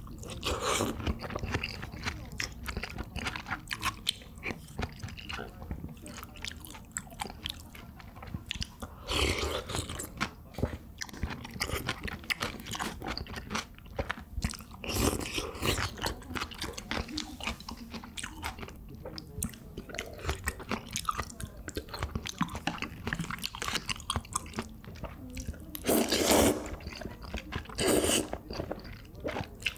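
Close-miked eating sounds: steady chewing and wet mouth clicks, with several louder slurps of soup and noodles. The loudest slurps come twice near the end, as jajangmyeon noodles in black bean sauce are sucked up from the bowl.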